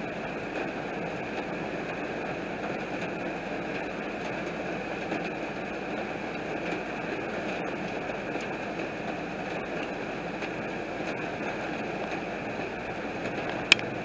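Heavy rain falling steadily on a car's windshield and roof, heard from inside the car, with one sharp click near the end.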